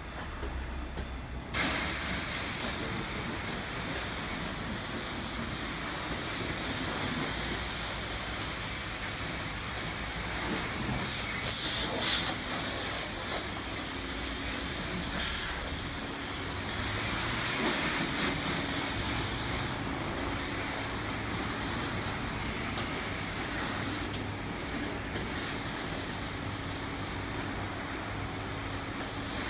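Hand-held pressure spray wand hissing as it blasts water onto a car's body and windows. It starts suddenly about a second and a half in and runs steadily.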